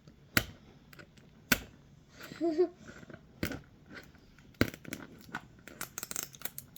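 Plastic wrapper crinkling and crackling as it is pulled and torn along its tear line, with a string of sharp snaps and clicks that come thicker near the end.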